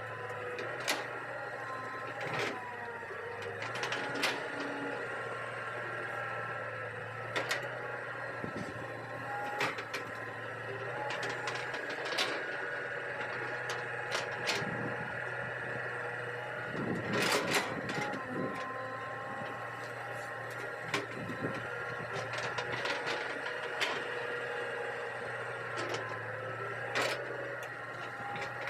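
Hitachi EX200 excavator working: a steady engine hum with whining hydraulics, and sharp clanks every few seconds.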